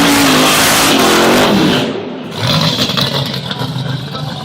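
A loud engine revving hard, easing off about two seconds in, then revving up again.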